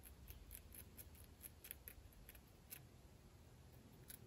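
Hobby knife blade scraping a soldered brass photo-etch railing to clean up its top surface: a string of short, faint scrapes, about a dozen strokes.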